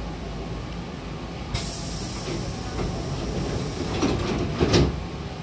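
Hankyu train's air-operated double sliding doors closing. A sharp hiss of air starts suddenly about one and a half seconds in as the door engines work, then the panels slide shut and meet with a few thumps near the end, over the standing train's steady low hum.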